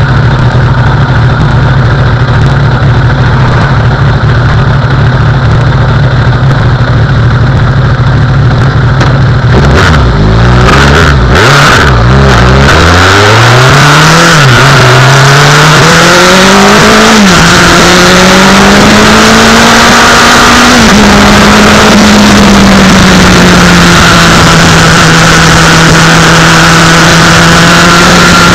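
Yamaha YZF1000R Thunderace's inline-four engine on the road: a steady cruise, then about ten seconds in a quick run of revs, then pulling hard up through the gears, the pitch rising and dropping at each shift. From about two-thirds of the way in it holds a steady, higher note, with wind rushing louder over the microphone.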